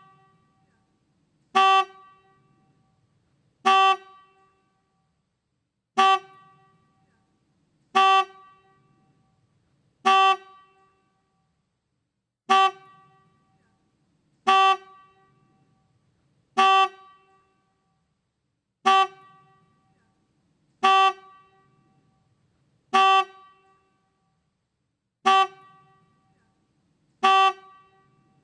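Motorcycle horn giving short single honks, one about every two seconds, each a brief beep at one steady pitch.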